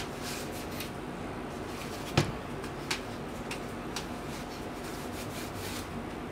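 Hands handling a plastic laptop cooling pad: rubbing against the casing and light knocks, with one sharper knock about two seconds in and a few fainter taps after it.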